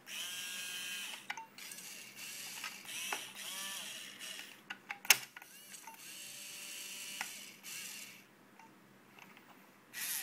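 Small gearmotors of a toy robot arm kit whirring in a series of short bursts as the arm is driven from its controller, with a high whine, and one sharp click about five seconds in. The motors fall quiet for the last two seconds.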